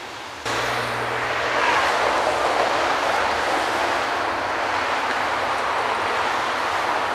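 Street traffic noise, a loud, steady rush that starts abruptly about half a second in and swells a little about two seconds in.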